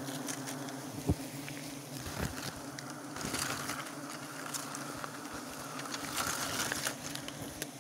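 Steady low drone of a wild giant honey bee (odeng, Apis dorsata) colony buzzing in a mass on a tree trunk. Leaves rustle and there is handling noise, with a sharp click about a second in.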